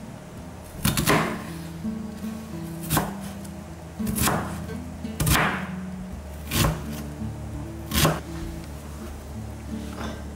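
Kitchen knife chopping on a cutting board, about six separate strikes at an uneven pace over background acoustic guitar music.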